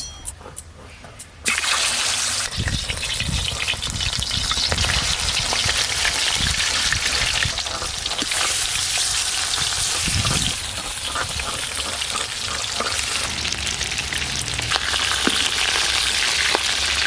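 Turmeric-coated stingray (sankar fish) pieces sizzling as they fry in hot oil in a large wok, the sizzle starting suddenly about a second and a half in as the fish goes into the oil. A few dull knocks come as the pieces are moved about in the pan.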